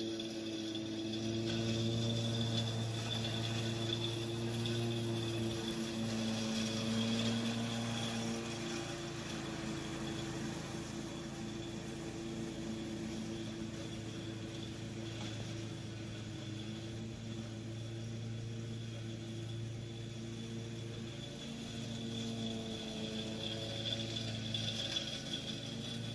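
Gravely ZT HD 52 zero-turn mower heard at a distance, mowing through a patch of leaves with its mulch kit fitted. The engine hum is steady, with its pitch shifting slightly a couple of times as the load changes.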